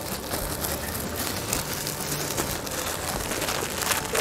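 Small clear plastic bag of cooked rice crinkling as it is folded over by hand.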